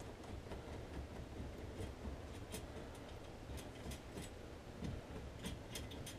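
Faint, scattered light clicks and small rubbing noises of a Champion 3000 lb winch being handled and fitted by hand against its steel mounting plate, over a low background rumble.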